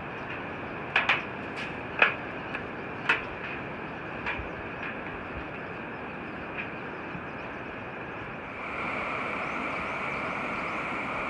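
Footsteps clanking on the slatted steel deck of a suspension bridge: a handful of sharp metallic strikes in the first few seconds, fading out, over a steady rush of river water below. About nine seconds in the river's rush becomes louder and more even.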